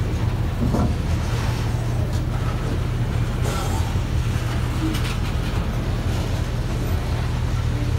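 Freight train of covered hopper cars rolling past: a steady low rumble of wheels on rail, with two brief sharper noises midway.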